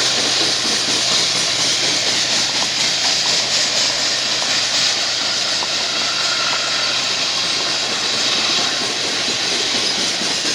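Empty crude-oil tank cars of a freight train rolling past, a loud steady rush of wheels on rails.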